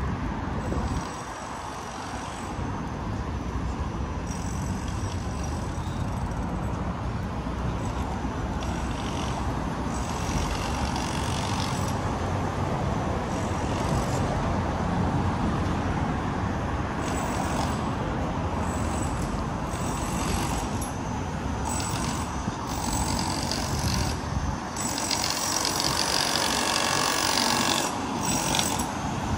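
Traffic on a busy city street: a fairly steady wash of passing vehicles.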